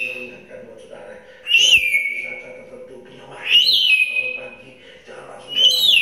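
African grey parrot whistling: three calls about two seconds apart, each a quick rising note that levels off and slides slightly down.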